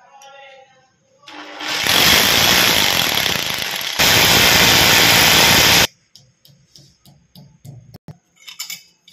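Electric drill boring through ceramic wall tile: it spins up a little over a second in, runs loud and steady for about four seconds, and cuts off suddenly. Then a string of light taps and clicks as plastic wall plugs are set into the drilled holes.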